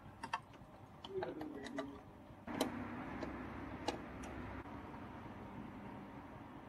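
Light clicks and knocks of plastic parts being handled around a washing machine's water level sensor, then from about two and a half seconds in a sudden steady rustling scrape with a sharper click, and two more clicks near the four-second mark.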